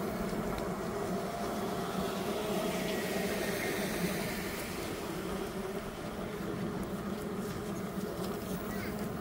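Large truck's engine running steadily, a low even hum.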